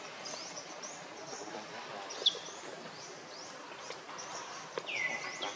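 Forest ambience: steady outdoor hiss with many small, high bird chirps, a sharp brief call about two seconds in and a longer falling call near the end.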